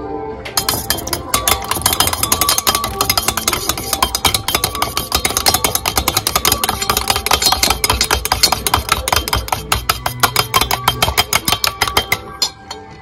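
Eggs being beaten with a metal utensil in a stainless steel bowl: rapid, rhythmic clinking of metal against the bowl, several strokes a second. It stops about a second before the end.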